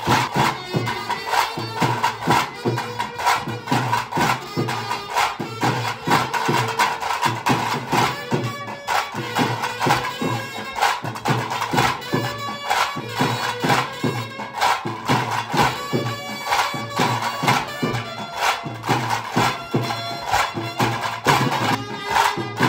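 Traditional tiger-dance music: tase drums beating a steady, dense rhythm while a reed wind instrument plays a sustained, nasal melody over them.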